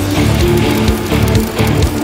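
Loud rock music with guitar and a steady beat.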